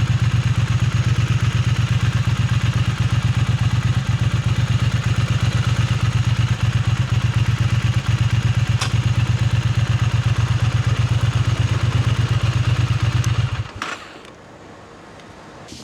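Triumph Speed Twin 900's parallel-twin engine running steadily at low revs, then shut off about fourteen seconds in. A couple of light clicks follow the shutdown.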